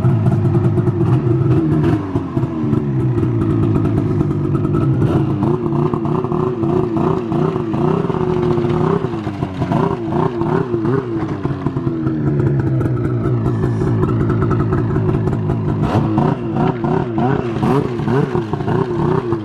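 Ski-Doo two-stroke snowmobile engine with an aftermarket race can exhaust, running and revved in quick short throttle blips, several a second in two spells, dropping back between them. It has a rumble that sounds better than the stock exhaust.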